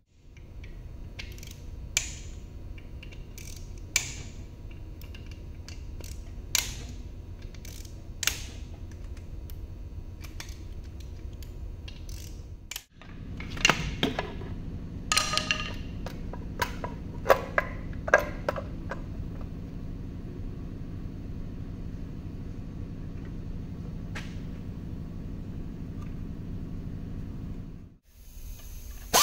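Hand tools clinking and knocking against a Toyota 2AR-FE engine block on an engine stand: scattered sharp metal clicks, a few ringing briefly, over a steady low shop hum. The sound drops out briefly twice, about 13 seconds in and near the end.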